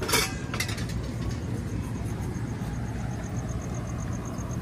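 Steady low hum of outdoor street background noise, with a brief clatter right at the start.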